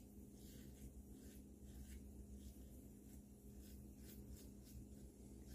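Faint, short scrapes of a 1954 Gillette Silver Tip safety razor with a Gillette 7 O'Clock blade cutting lathered stubble, in irregular strokes about two a second, over a low steady hum.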